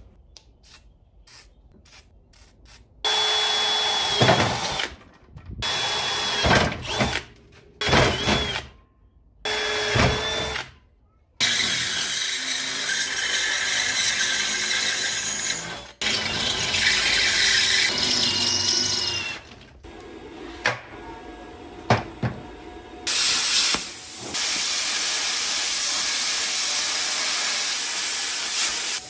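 A power drill boring mounting holes in steel plate runs in four short bursts, each spinning up at its start, after a few faint clicks. Then come longer stretches of steady loud noise, ending in the steady hiss of a plasma cutter cutting out the plate.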